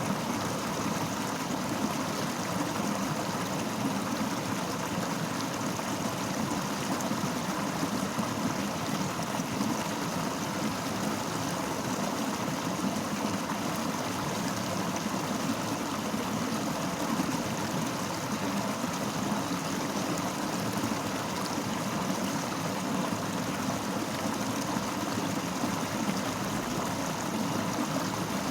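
Fast-flowing river water rushing and gurgling over rocks, a steady even roar.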